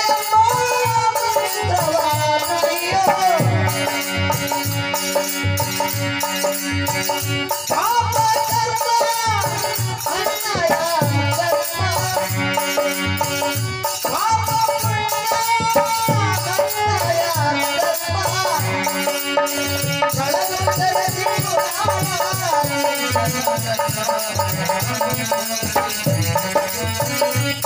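Kannada devotional bhajan: men's voices sing long, bending phrases over a harmonium's held notes, with small hand cymbals keeping a steady beat.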